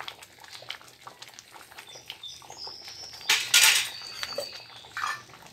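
Metal spoon and utensils clicking and scraping against a metal cooking pot as grated coconut goes in, with one louder scrape about three seconds in. A few faint high chirps sound in the background.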